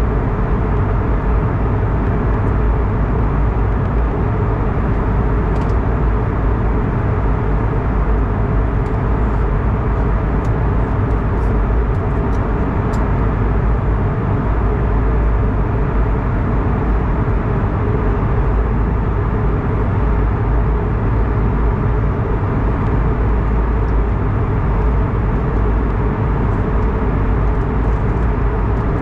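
Steady cabin drone inside an Airbus A220-300 in flight: the hum of its engines and the rush of air along the fuselage, heavy in the low end and unchanging.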